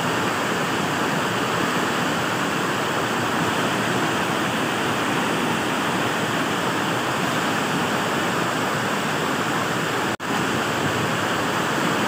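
A tall waterfall in full flow: a steady, loud rush of falling water. It cuts out for an instant about ten seconds in.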